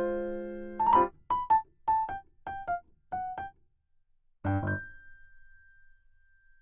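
Background music: a light, playful electric-piano tune of short notes, about two a second, ending on a chord about two-thirds of the way through whose one high note fades away slowly.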